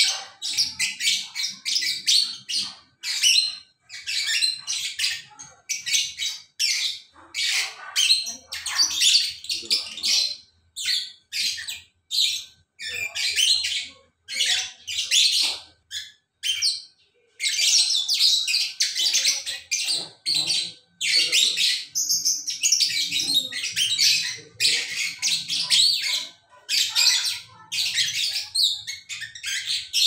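Lovebirds chattering in long, shrill runs of rapid chirps and screeches, with only short breaks and one brief pause about halfway through: the sustained full chatter that keepers call "gacor".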